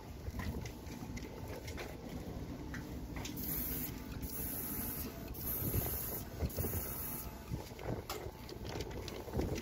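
Viper Pro X battery airbrush kit spraying Awlgrip 545 primer: the small battery compressor hums steadily while the trigger airbrush gives four short hissing sprays, each under a second, between about three and a half and seven seconds in.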